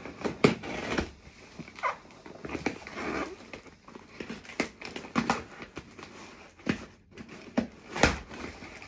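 Cardboard box being handled and opened by hand: irregular scrapes, rustles and knocks of cardboard and packing tape, with a sharp knock about eight seconds in.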